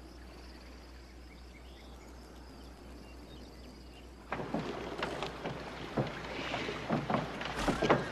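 Faint quiet outdoor background, then about four seconds in a group of horses close by: irregular hoofbeats and knocks as the riders move along.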